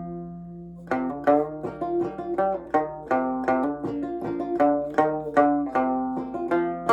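Five-string banjo in sawmill tuning played clawhammer style: one note rings out and fades for about a second, then a steady run of bright plucked notes and strummed chords.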